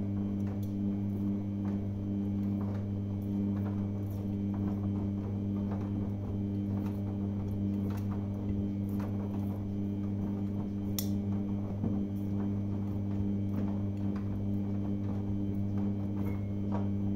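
Samsung front-loading washing machine in the main wash of a Cottons programme: the drum motor hums steadily as the drum turns, with frequent soft knocks of wet laundry tumbling inside.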